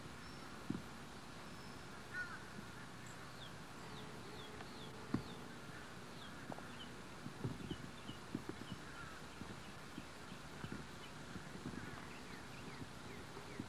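Birds chirping faintly, a run of short quick chirps over a low steady hiss, with a few scattered soft knocks.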